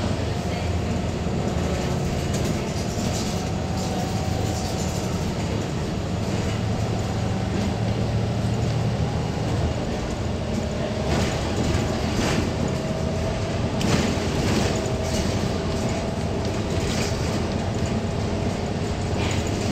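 Interior of a moving double-decker bus: a steady engine and drivetrain drone with road noise, a faint whine that drifts a little in pitch, and occasional rattles and knocks from the body, most of them about halfway through.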